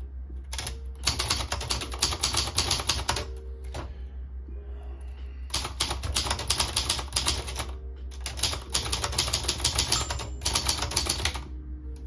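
Silver Seiko ultra-portable manual typewriter being typed on: three runs of rapid key strikes, each a few seconds long, separated by short pauses.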